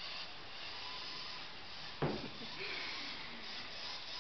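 Small electric motor of a toy RC car whirring as it drives over a wooden floor, with one sharp knock about two seconds in.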